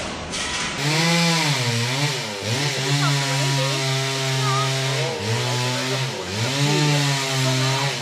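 Two-stroke chainsaw running at high revs, with the throttle eased off and opened again several times so the engine note dips and climbs back.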